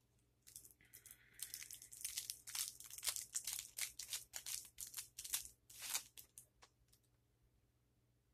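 Cigar packaging wrapper crinkling and tearing as it is handled, with a dense run of sharp crackles that stops about seven seconds in.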